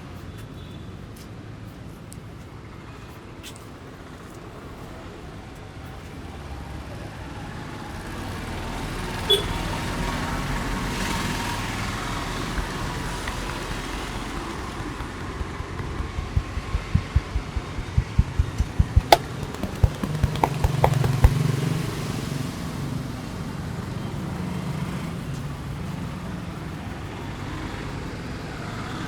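Steady street traffic noise, swelling louder after the first few seconds. About halfway through comes a quick run of sharp taps, several a second, lasting several seconds.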